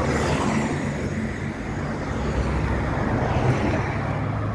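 Steady road and engine noise of a car driving, with a low hum, heard from inside the car.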